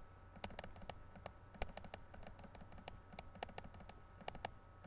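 Faint, quick, irregular clicking of a computer mouse, many clicks in a row, as a stack of command prompt windows is closed.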